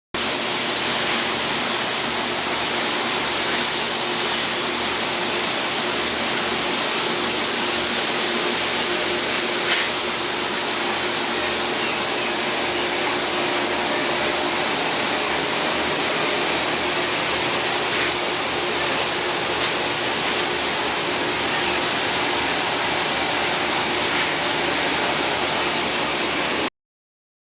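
Poultry coop washer running: a steady, loud hiss of spraying water with a faint steady machine hum under it. It cuts off abruptly shortly before the end.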